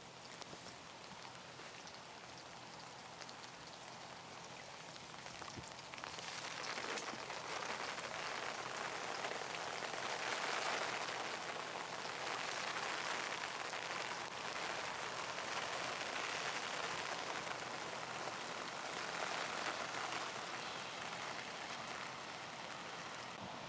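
A steady noise like falling rain, getting louder about six seconds in.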